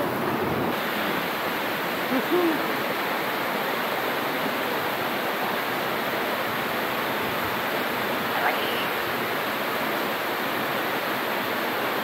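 Steady rush of water falling at a waterfall, an unbroken noise that does not change.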